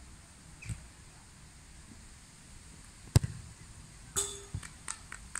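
A football kicked hard: one sharp thud about three seconds in, followed by a few lighter knocks.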